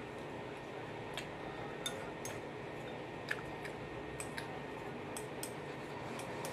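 Someone eating from a ceramic bowl tipped up to the mouth with chopsticks: about ten scattered light clicks and taps over a steady background hiss.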